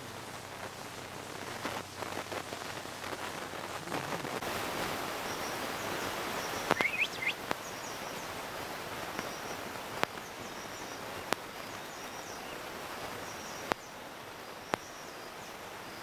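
Steady outdoor hiss and rustle with faint, short, high bird chirps repeating about once a second from about a third of the way in. A brief rising chirp sounds about halfway through, and there are several sharp clicks.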